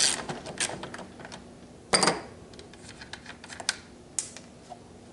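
Light clicks from a socket ratchet and a loose wheel bolt as a push mower's front wheel is being unbolted, with one sharp clank about two seconds in and scattered faint clicks after it.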